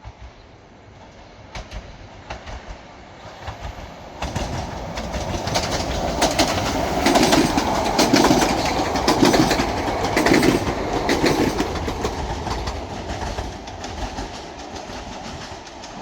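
Stadler FLIRT electric multiple unit passing at speed, its wheels clacking over the rail joints. The clacks start faint, swell from about four seconds in, are loudest in the middle and then fade as the train goes by.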